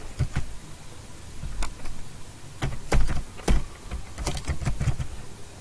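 Typing on a computer keyboard: scattered key clicks at an uneven pace.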